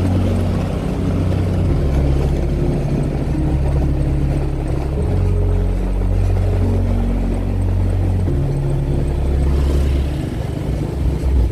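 Motorbike engine running during a ride, a steady low drone whose pitch steps up and down a few times as the speed changes, under a heavy low rumble.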